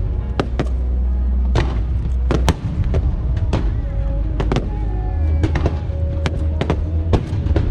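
Fireworks going off in a quick, irregular run of a dozen or so sharp bangs, over loud music with a heavy bass.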